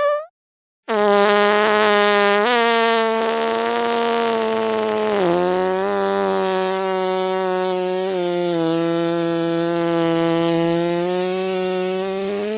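Long, drawn-out fart sound effect: one sustained buzzing tone that starts about a second in after a brief silence. Its pitch holds steady apart from a couple of small dips.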